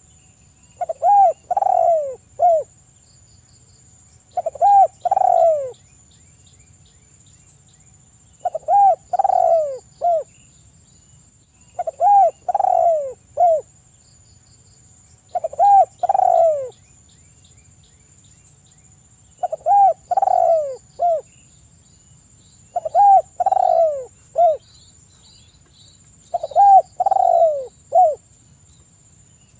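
Spotted dove cooing: a short phrase of three or four low, falling coos, repeated eight times at about three-and-a-half-second intervals.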